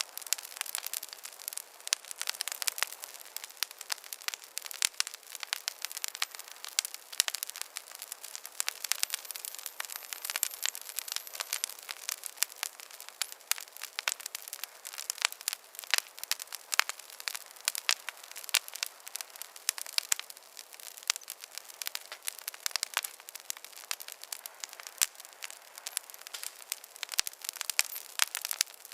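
Wood campfire crackling steadily: many irregular sharp pops and snaps, several a second, over a soft hiss.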